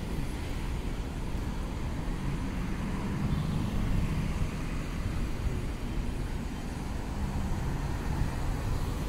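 Street traffic: motor vehicles running along the road, a steady low rumble with an engine tone swelling a few seconds in.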